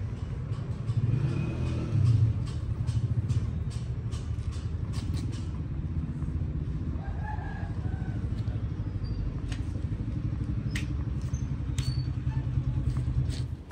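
Steady low engine or machine drone with scattered sharp clicks and taps over it, and a few short high chirps. It all stops abruptly at the end.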